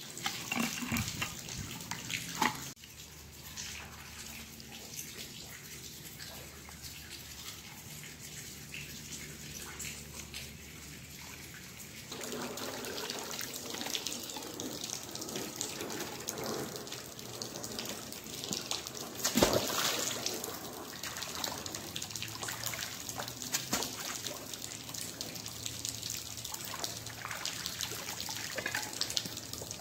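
Water trickling and dripping as a wet magnet-fishing rope and magnet are pulled up out of a river, with one louder sudden noise about two-thirds of the way in.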